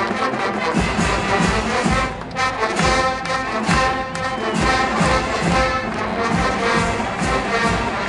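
University marching band playing a military march: massed brass over a steady bass-drum beat of about two strokes a second.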